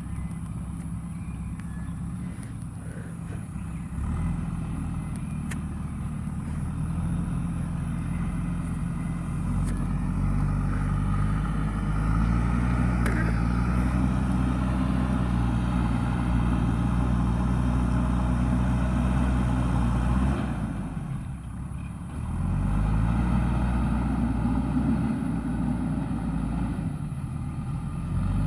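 Diesel engine of a JCB backhoe loader working, its revs and level climbing as it takes load. It eases off briefly about three-quarters of the way through, then revs up again.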